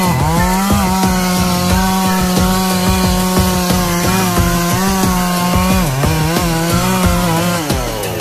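Two-stroke chainsaw running at high revs while cutting melaleuca wood, its engine pitch sagging briefly under load and picking back up at the start, about six seconds in and again near the end.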